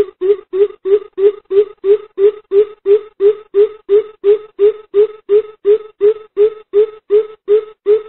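Greater coucal calling: a long, even series of low hoots, about three a second.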